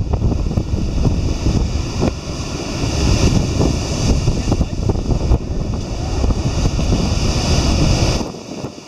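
Wind buffeting the microphone over the wash of ocean waves and surf, a steady low rumble that dips briefly near the end.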